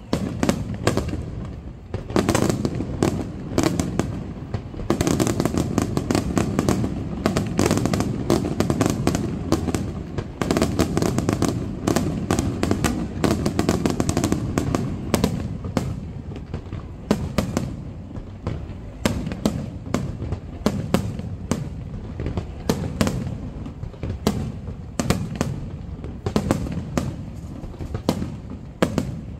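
Aerial fireworks display: many shells and rising comets bursting in rapid succession, a dense run of sharp bangs and cracks over a continuous low rumble, heaviest in the middle and easing slightly near the end.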